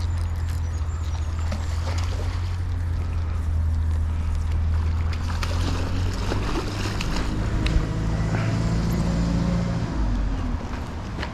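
A hooked fish splashing at the water's surface as it is reeled in toward the landing net, over a steady low engine-like hum.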